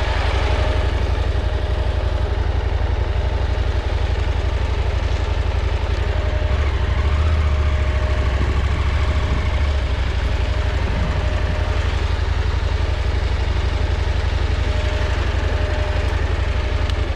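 Motorcycle engine running at a steady pace while riding, under a steady rush of wind and road noise.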